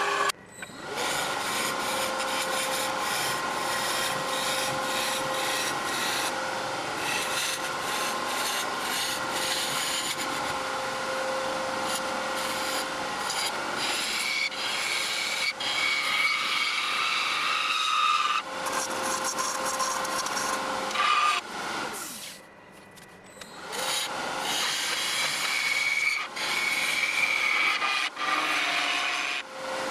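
A tool scraping against a yew blank spinning on a wood lathe, a continuous rasping noise with steady tones from the lathe running underneath. It stops for a moment about three-quarters of the way through, then resumes.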